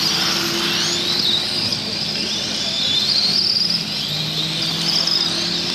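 Electric radio-controlled F1 race cars' motors whining, their high pitch rising and falling over and over as the cars accelerate and slow through the corners, with a steady low hum underneath.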